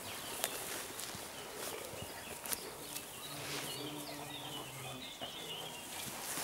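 Hounds and their handler pushing through tall dry grass on a leash: grass rustling and scattered footsteps and stalk snaps. About three seconds in, a faint low hum with a wavering high chirp over it comes in for roughly two seconds.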